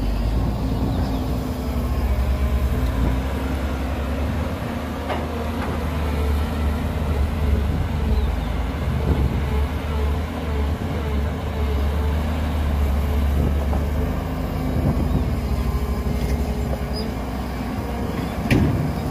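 Heavy diesel engine of earthmoving machinery running steadily, with a low rumble. A single sharp knock is heard near the end.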